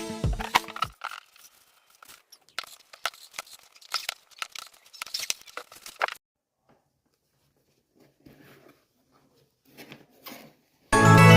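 Packaging being opened by hand: a run of short, sharp tearing and crinkling sounds, then a pause and a few quieter handling noises.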